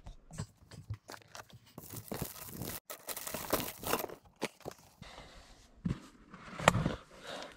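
A person clambering through a cramped attic: irregular rustling and crunching with scattered knocks, densest in the middle, and one sharp knock near the end.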